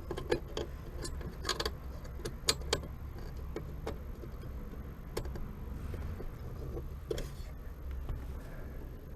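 Metal clicks and clinks of hand tools and clutch-pedal hardware being worked by hand: a run of sharp ticks in the first three seconds, then sparser knocks and a short clatter, over a steady low hum.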